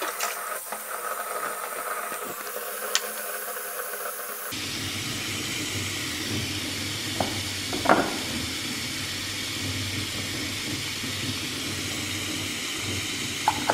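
Steady hiss of water: a tap running into a foamy bubble bath, then, after a cut about four and a half seconds in, a heart-shaped bath bomb fizzing as it dissolves in the bathwater, with a couple of small splashes.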